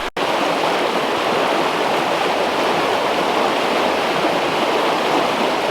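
Creek water rushing steadily, the creek swollen by the previous night's storm rain. A brief gap in the sound just after the start.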